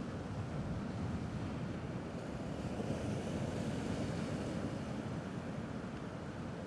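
Sea waves washing gently against the rocky shore as a steady rush of surf, swelling slightly a few seconds in.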